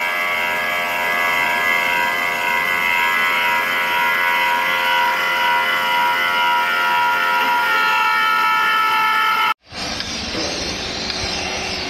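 Small grinding wheel on a high-speed spindle grinding the inner surface of a large rotating steel ring: a steady, shrill, many-toned whine with sparks flying. It cuts off abruptly about nine and a half seconds in, and a different broad hissing noise follows.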